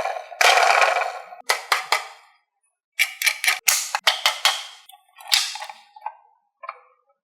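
Marbles rolling and clacking down a wooden HABA marble run: a rattling run at first, then a quick cluster of sharp clacks, thinning to a few fainter clicks near the end.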